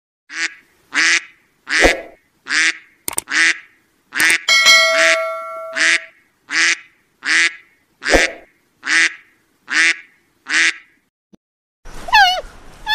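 White domestic duck quacking over and over, short loud quacks about one every 0.7 seconds, with a brief ringing tone about five seconds in.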